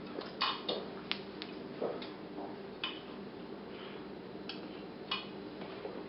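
Light plastic clicks and knocks from handling coffee-grinder parts: a clear plastic grinder cup and a white blade grinder with its lid off. About eight short separate clicks, over a steady low hum.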